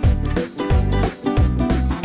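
Background music: an instrumental passage of an Afrikaans song, with a steady beat of repeated bass notes.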